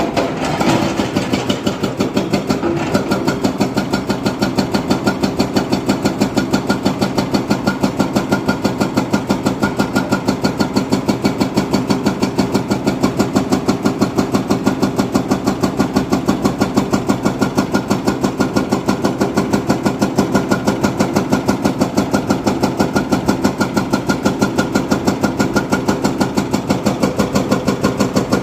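Diesel engine of a heavy machine running steadily at idle with an even chugging pulse, about five beats a second.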